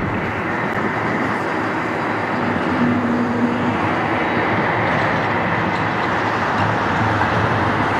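Boeing 747-400's four turbofan engines running at taxi power: a steady jet rumble and hiss, with a brief low hum about three seconds in.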